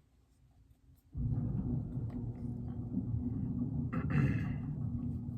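A steady low rumbling hum starts abruptly about a second in and keeps going, with a short brighter scuff about four seconds in.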